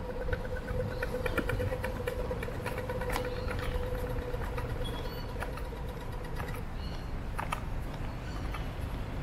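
Street traffic: a constant low rumble of vehicles with a steady engine hum that stops about two-thirds of the way through, and quick, high, repeated chirps over the top.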